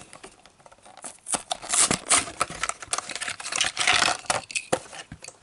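Plastic blister-card packaging of a 1:64 diecast car being handled: irregular crinkling, scraping and clicking.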